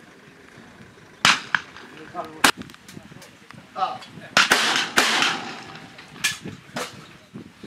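Shotgun shots on a clay-target range: about six sharp reports, some nearer and louder than others, including a pair about half a second apart near the middle.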